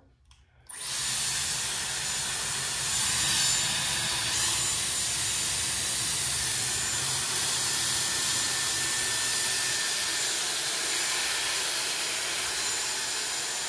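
Dyson Airwrap hair styler switched on under a second in, at its highest heat and highest airflow, then running with a steady, pretty loud rush of air and a faint high whine.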